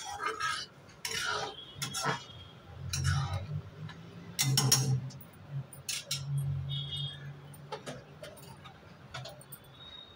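Metal spatula stirring thin curry gravy in a steel kadhai, scraping and clinking against the pan in short bursts.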